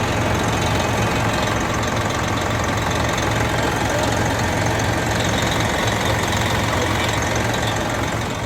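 Turbocharged diesel engine of a semi truck idling steadily, its failed turbo-outlet exhaust clamp newly replaced. The sound eases slightly near the end.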